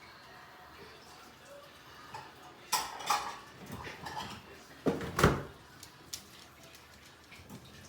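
Things knocking and clattering as they are moved about inside a refrigerator: a handful of sharp knocks, the loudest a little past halfway.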